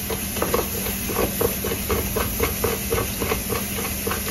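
Pressure cooker's weighted steam valve hissing in rapid, even puffs, several a second: the cooker is up to pressure. A steady low hum runs underneath.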